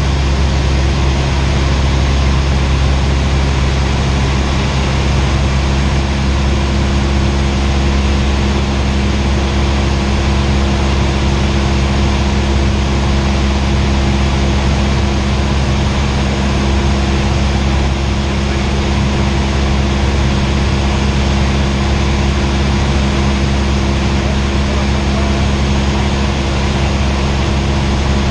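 Cessna 172R's four-cylinder Lycoming engine and propeller running steadily in flight, heard inside the cabin as a constant low hum at unchanging power.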